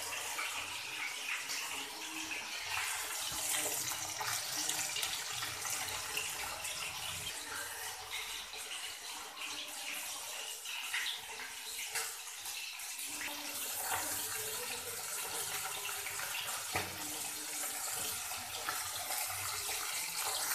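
Whole tilapia shallow-frying in hot mustard oil in a kadai: a steady sizzling hiss with many small crackles.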